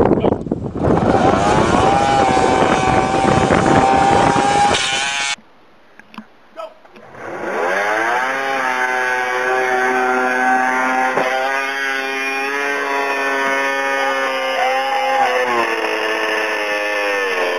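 Two-stroke snowmobile engine held at high revs, stopping abruptly about five seconds in. After a quieter gap of about two seconds it is heard again, revving up quickly, holding a steady high pitch, then dropping off near the end.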